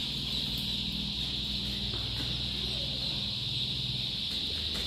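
A flock of about a hundred young chicks peeping all at once, merging into a continuous high-pitched chorus, over a low steady hum.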